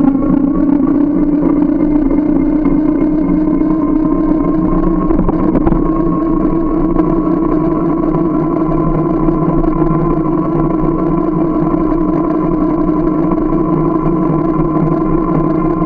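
A motor running at a steady speed, a constant hum whose pitch edges up slightly over the first few seconds and then holds.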